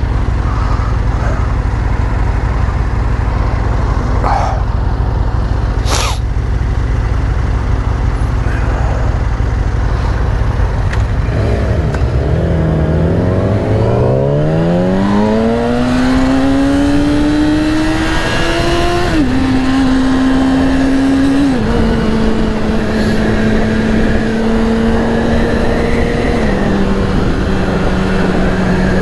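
Sport motorcycle's inline-four engine, heard from the rider's seat: low steady running, then about twelve seconds in it revs up hard through one gear. It then upshifts three times, the pitch dropping at each shift and holding nearly steady between them. A single sharp click comes about six seconds in.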